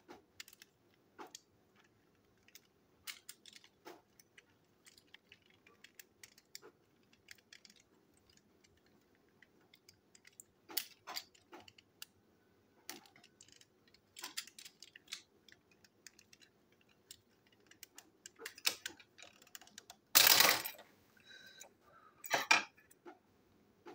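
Small clicks and taps of plastic parts and tiny screws being handled while a battery-powered plastic toy train engine is taken apart with screwdrivers. Near the end comes a louder clatter lasting about a second, then a shorter one.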